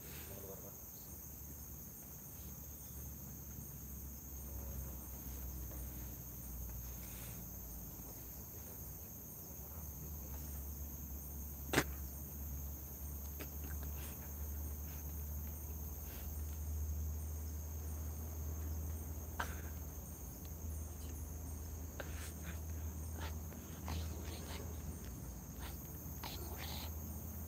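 Night insects trilling steadily in two high tones over a low rumble, with scattered clicks and rustles; one sharp click about twelve seconds in is the loudest sound.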